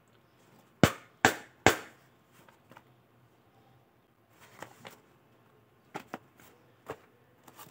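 Three sharp knocks on the hard plastic caps of tactical knee pads, quickly one after another, then softer clicks and rustling as the pads and their nylon straps and buckle are handled.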